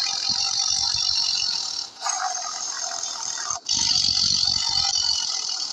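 Tiger growling sound effect, a rough, rattly growl repeated in stretches of about two seconds with short breaks between them.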